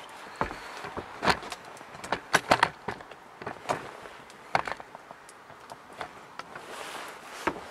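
Close handling noise: a string of irregular clicks and knocks, several bunched between about one and three seconds in, with rustling in between.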